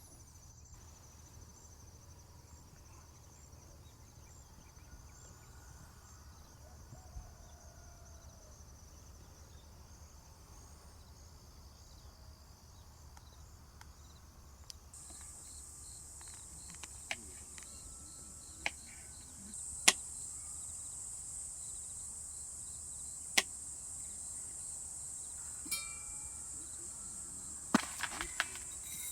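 Insects trilling steadily in a high, even chorus, with a louder, higher-pitched trill taking over about halfway through. Several sharp knocks or taps sound singly in the second half.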